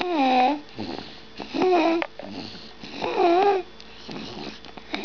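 Two-month-old baby snoring loudly: three pitched, squeaky snores, one on each breath about every second and a half.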